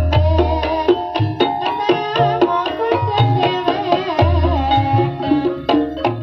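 Javanese ebeg gamelan music: a pitched melody over sharp hand-drum strokes and deep drum beats in a steady rhythm, the deep beats briefly dropping out near the end.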